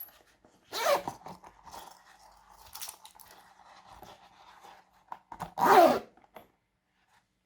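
Glossy slime being squeezed and worked by hand: two loud squelches, about a second in and again about five and a half seconds in, with faint sticky crackling between them.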